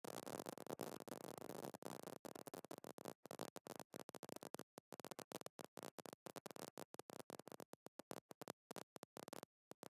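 Near silence: faint steady hiss of room tone, cutting in and out ever more often towards the end.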